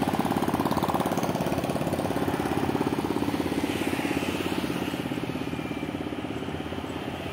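A small motorcycle engine running with a fast, steady putter that slowly fades.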